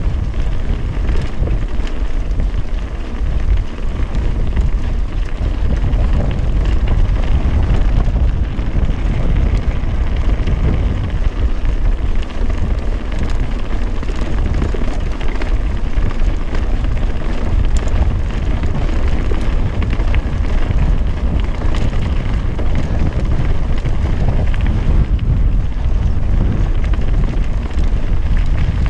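Wind buffeting a helmet-mounted camera's microphone as a mountain bike rides down a stony gravel trail, a steady low rumble with the crunch and rattle of tyres and bike over loose stones.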